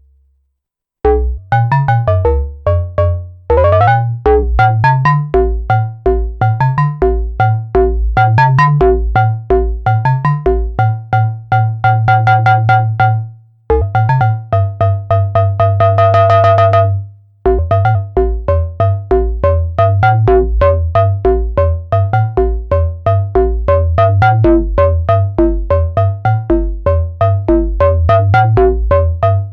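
Arturia MiniBrute 2 monophonic analog synthesizer playing a fast repeating bass pattern of short notes, starting about a second in. Partway through, the pattern gives way to two longer held notes with brief breaks before the quick notes return.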